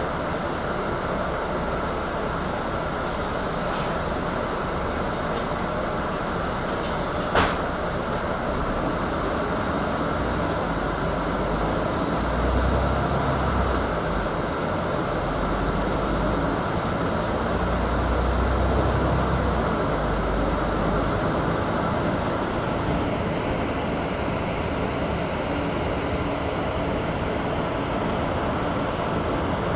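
Steady running noise of a city bus, heard from inside. A few seconds in, a high hiss lasts about four seconds and ends in a sharp click. Two low swells of rumble come later.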